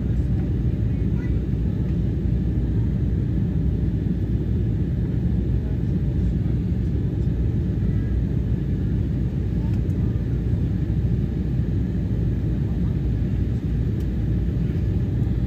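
Steady low rumble of jet airliner cabin noise, engines and airflow heard from inside the cabin at a window seat, on approach to landing.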